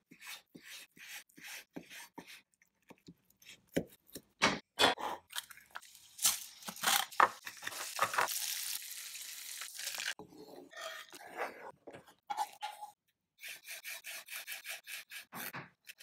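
Kitchen knife cutting on a wooden chopping board in short strokes as bacon is sliced, then a fork beating eggs in a bowl with a dense, steady clatter in the middle. Near the end, a knife chops herbs on the board in quick, even strokes.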